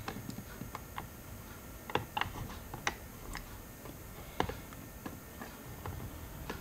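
Scattered light clicks and ticks from handling and adjusting the G1200 digital microscope's focus and height mechanism, irregular, with a few louder ones in the middle.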